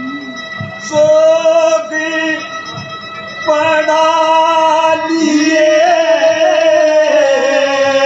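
Haryanvi ragni music: a melody of long held notes stepping from pitch to pitch, with a light drum beat underneath.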